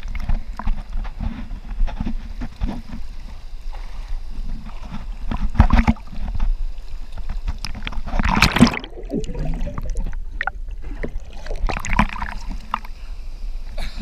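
Creek water splashing and sloshing against a waterproof camera housing held at the surface while a man swims, with many small knocks and slaps of water over a steady low rush. About eight and a half seconds in there is a loud burst, with the man's open-mouthed exclamation.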